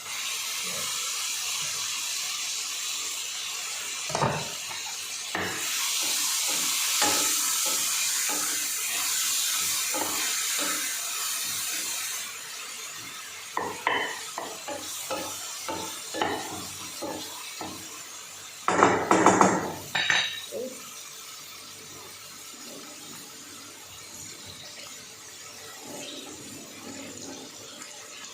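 Kitchen work sounds: a steady hiss for about the first twelve seconds that cuts off abruptly, then a string of clinks and knocks of utensils against pots and dishes, with a louder clatter near the two-thirds mark.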